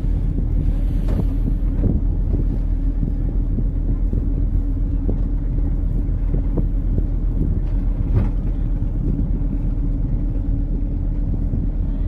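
Speedboat engine running steadily under way, a constant low drone with a few sharp knocks, the loudest about eight seconds in.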